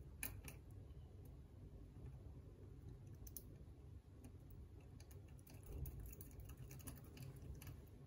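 Faint, scattered clicks and ticks of metal bracelet links and pins knocking together as a Leatherman tool-link bracelet is worked onto a watch case, with more of them in the second half.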